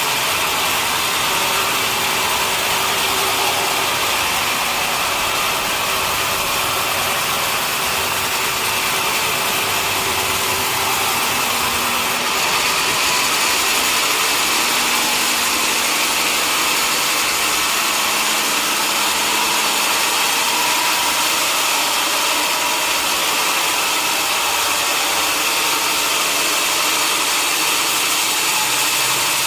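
Sawmill machinery running steadily, a loud, even, hissing noise, with a slight rise in level about twelve seconds in.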